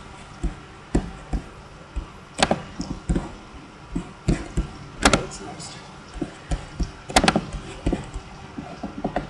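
Irregular clicks and taps of a computer mouse and keyboard being worked close to the microphone, with a few sharper, louder clicks among softer ones.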